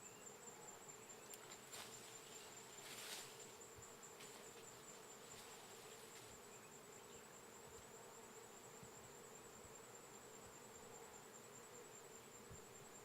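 Faint, steady hum of honeybees buzzing, with a brief rustle about three seconds in.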